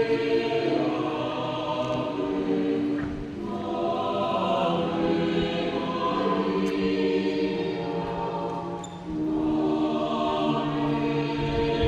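A choir singing a slow hymn in long held chords, with short breaks between phrases about three seconds in and again about nine seconds in.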